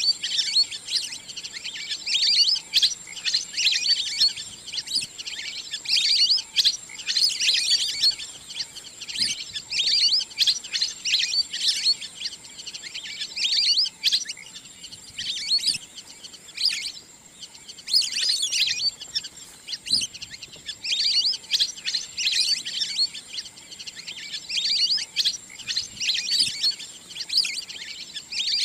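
Wild duck calls: rapid high-pitched chirping and whistling notes in bursts about a second apart, with a brief lull midway.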